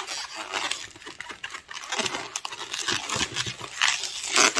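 Green 260 latex modelling balloon squeaking and rubbing in the hands as small bubbles are twisted and pinch-twisted into a chain, with the loudest squeak near the end.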